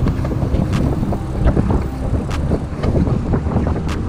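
Wind buffeting the microphone of a camera on a moving bicycle, a dense low rumble mixed with tyre noise from the road. Three sharp clicks come about a second and a half apart.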